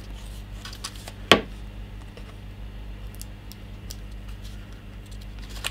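A small blade and fingers working at a small box's packaging: one sharp click about a second in and a few faint ticks, over a steady low electrical hum.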